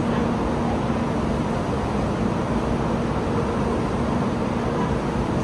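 Stationary Taiwan High Speed Rail 700T trainset standing at an underground platform, a steady hum and rush of its running equipment with a constant low drone.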